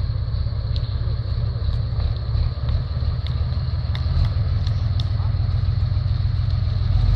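Heavy diesel truck engine running at low speed, a steady deep rumble, with a few faint clicks over it.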